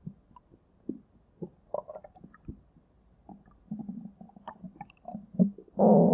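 Stomach growling: scattered small gurgles and pops, a longer gurgle about four seconds in, then a loud sustained rumble starting near the end.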